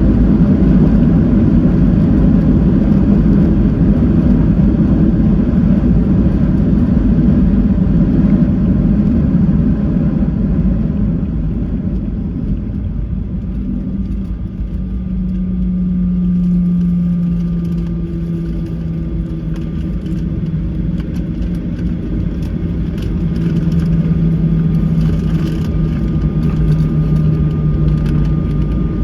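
Jet airliner cabin noise during the landing roll. A heavy rumble of engines and wheels for the first ten seconds or so eases off to a quieter engine hum with a steady low drone as the aircraft slows.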